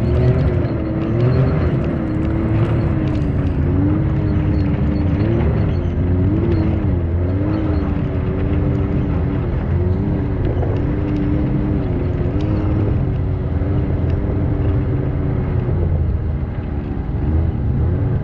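Can-Am Maverick X3 side-by-side engine running steadily while driving off-road, its pitch rising and falling briefly again and again with the throttle.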